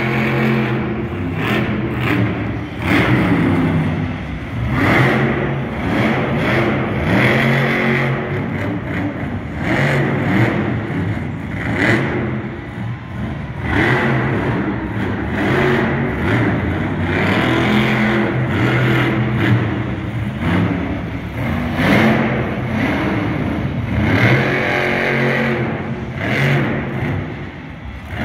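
Stone Crusher monster truck's supercharged V8 revving hard over and over, its pitch climbing and dropping every couple of seconds as the truck spins and wheelies on the dirt.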